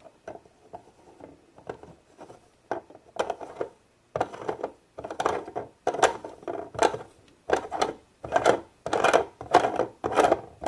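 Plastic tree trunk of a Play-Doh playset being screwed by hand into its threaded plastic base, plastic on plastic. It makes a run of short scraping strokes, one with each twist, about one every two-thirds of a second. The strokes are faint at first and grow louder about three seconds in.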